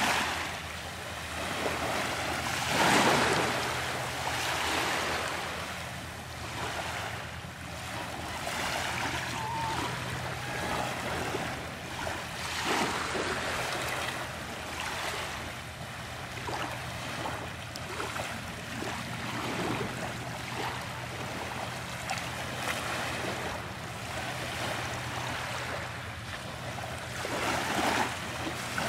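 Surf washing onto the beach, a steady wash of water noise that swells louder about three seconds in, again around twelve seconds, and near the end.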